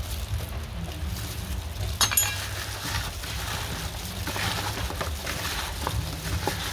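Raw chicken pieces being tossed in their marinade by a plastic-gloved hand in a plastic basin: wet squishing and glove rustling, with a sharp clink about two seconds in, over a steady low hum.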